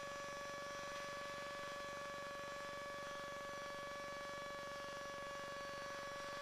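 Faint, steady electrical hum with a thin constant whine on the audio line. The loud engine and wind noise has cut off.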